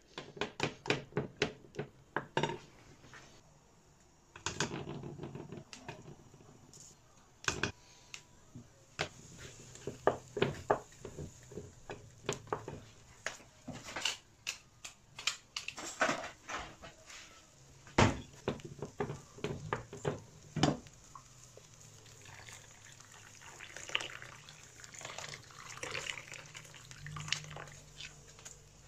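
Wooden spoon stirring in a stainless steel pot, knocking and scraping against the metal in quick runs of strokes, first through a thick flour paste and then through liquid soup. Water is poured in a little at a time, with a short stretch of pouring and sloshing about four seconds in.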